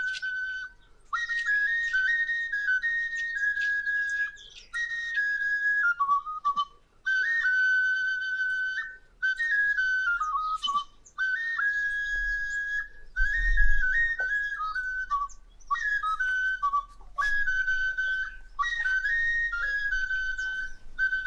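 A high whistle-like melody in short phrases of stepped notes, mostly falling at the end, repeated again and again with brief pauses between them. A low rumble swells briefly about thirteen seconds in.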